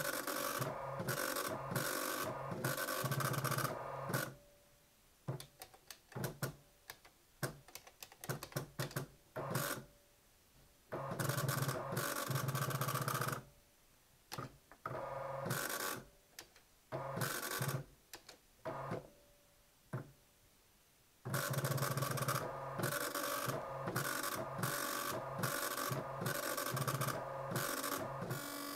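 Teletype Model 43 teleprinter printing incoming text, its impact dot-matrix head chattering rapidly over the motor's hum in stretches of several seconds, with pauses of scattered clicks between them.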